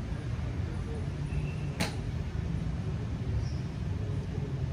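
A single sharp crack of a golf club striking a ball, about two seconds in, over a steady low background rumble.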